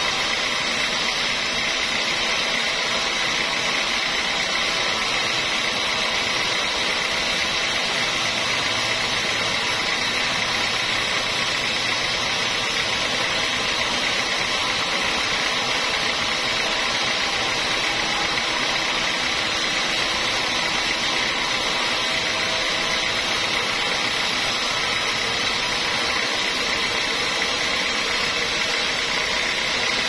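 Band sawmill blade cutting lengthwise through a mahogany beam, the saw running at a steady, even level with no pauses.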